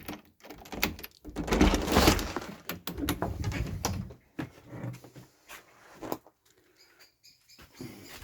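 Knocks, clatter and rustling, loudest about a second and a half in, followed near the end by faint high bird chirps.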